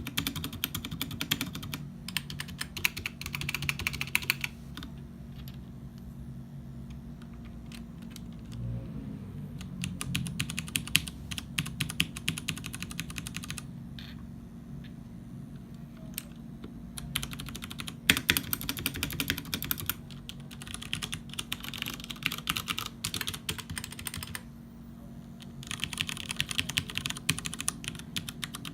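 Typing on a KUL ES-87 mechanical keyboard with tactile, non-clicky Cherry MX Brown switches and GMK Plum doubleshot ABS keycaps. Fast runs of keystrokes thin out to slower, quieter typing for a stretch in the middle, then pick up again with a short pause near the end.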